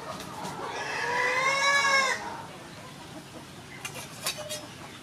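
A rooster crowing once: one long call that rises and then falls in pitch, followed about four seconds in by a few light clicks.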